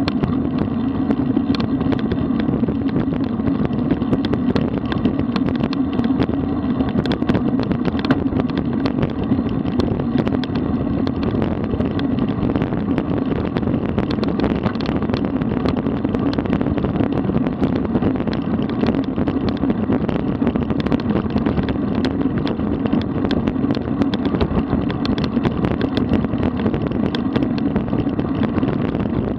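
Steady wind and road noise from a road bike riding along at speed, with many small ticks and rattles through it.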